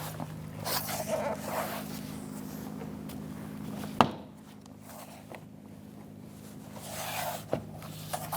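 Plastic interior door trim panel scraping and rustling against the door as it is fitted back on, with one sharp knock about four seconds in and a smaller click near the end, over a steady low hum.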